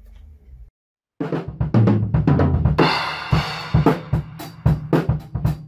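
A drum kit played hard, starting about a second in: a fast run of drum hits, a cymbal crash ringing out in the middle, then evenly spaced strikes.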